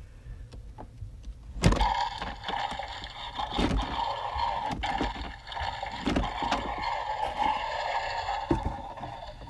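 Jurassic World Strike 'N Roar Giganotosaurus toy figure's electronic roar, set off by pressing its first button and played through its small built-in speaker. A click about a second and a half in, then one long roar of about seven seconds.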